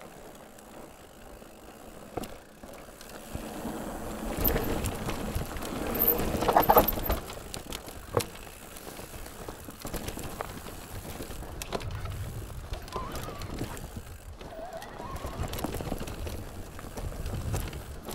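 Mountain bike rolling over a rough trail: tyre noise with rattling knocks, loudest about six to seven seconds in.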